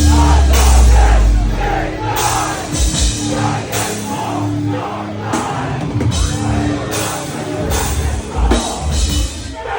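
Loud live heavy rock band playing: pounding drums and heavy bass and guitar, with vocals over the top.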